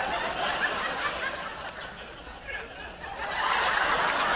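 A crowd laughing and chuckling; the laughter swells louder about three seconds in.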